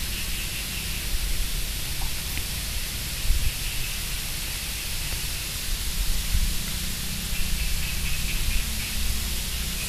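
Steady background hiss with a low rumble underneath and no distinct events: recording noise from the narration microphone while the speaker is silent.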